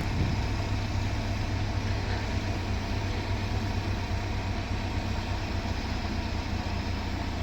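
A machine's engine running steadily with a low, even hum.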